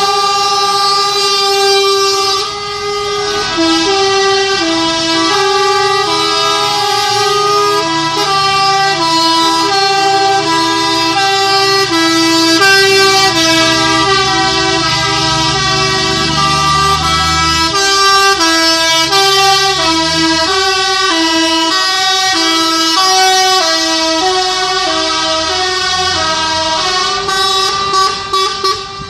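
Truck horns sounding continuously in an alternating two-tone pattern, several horn notes layered, over a low truck engine running. Near the end the horn breaks into short on-off blasts.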